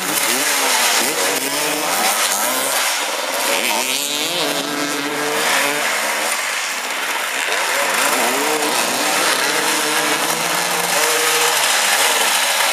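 Several motorcycle engines running together, revving up and down constantly as the bikes manoeuvre at low speed.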